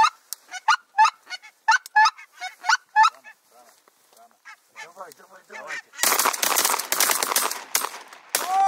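Geese honking in a quick run of short calls that grow fainter after about three seconds. About six seconds in, a loud stretch of dense noise takes over.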